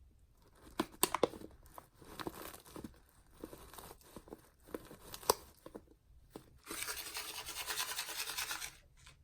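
Soapy sponge being squeezed: a run of sharp wet crackles and clicks, then about two seconds of dense, even crackling near the end that stops abruptly.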